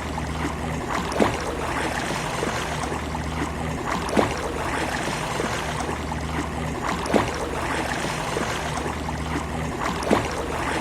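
Sea waves washing on a beach, a steady wash of water with a short, sharp slap about every three seconds.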